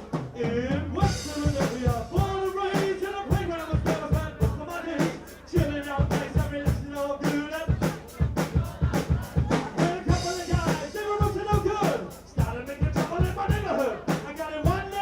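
Live band music: a drum kit keeps a steady beat under a wavering sung or rapped vocal line, with a short break in the vocal around the middle.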